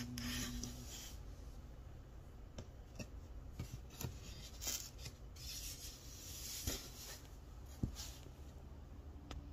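Writing on a board: faint scratching and rubbing strokes in short bursts, with scattered small taps.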